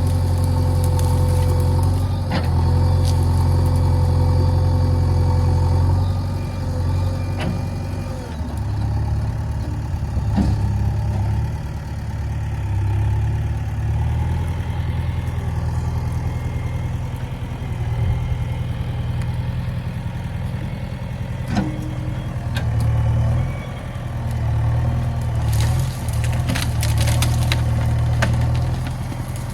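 Diesel engine of a JCB 3DX backhoe loader running steadily, its note shifting and wavering from about eight seconds in, with a few sharp knocks along the way.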